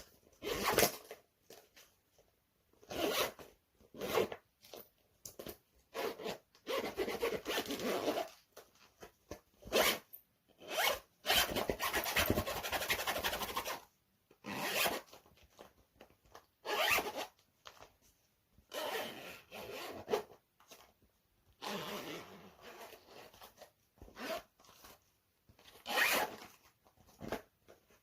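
A clothing zipper being pulled back and forth again and again, in a series of rasping strokes. Most pulls are quick, under a second, and one slow pull near the middle lasts about two and a half seconds.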